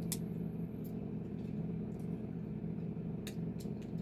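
A steady low hum with a few faint clicks of Lego pieces being handled, two of them sharper: one right at the start and one near the end.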